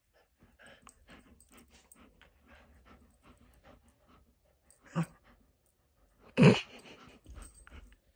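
Golden retriever and puppy play-wrestling: soft, quick breathy snuffles and small grunts, a louder grunt about five seconds in, and a short, loud dog vocal burst, the loudest sound, about a second and a half later.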